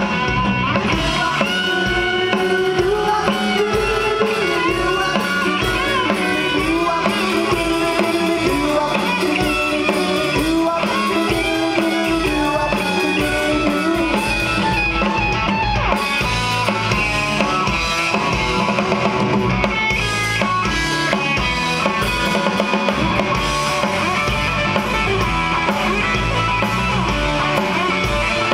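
Live rock band playing loud: electric guitar over a drum kit, at a steady level.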